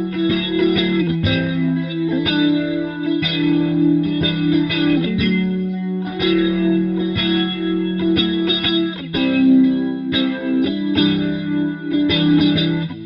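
Electric guitar played through an Electro-Harmonix Lester K rotary-speaker emulator pedal: chords strummed and let ring with its Leslie-style rotating-speaker effect.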